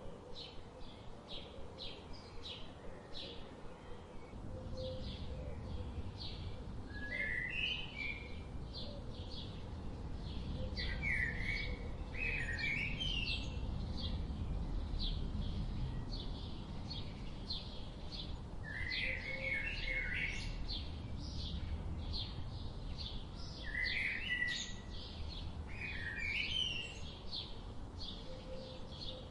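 Birds chirping: a steady series of short high chirps, about three a second, with louder warbling calls breaking in several times. A low rumble comes in about four seconds in and stays under the calls.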